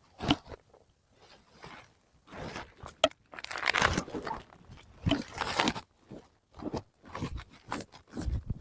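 A series of irregular crunches and scrapes, about a dozen short noisy bursts with the longest, loudest ones near the middle.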